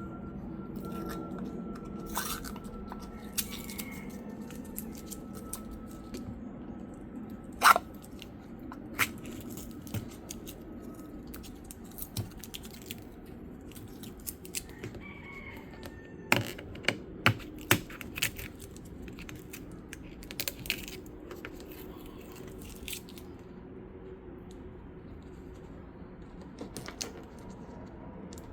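Protective plastic film being peeled off a new headlight's lens and housing, with scattered crackles and sharp clicks of the plastic. The film sticks and comes off in pieces.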